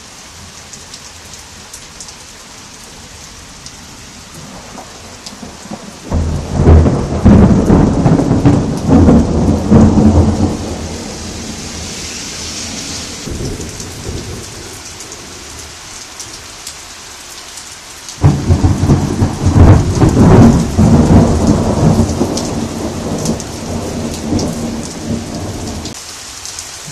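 Heavy rain falling steadily in a thunderstorm, with two loud claps of thunder, one about six seconds in and another about eighteen seconds in, each starting suddenly and rumbling for several seconds as it dies away.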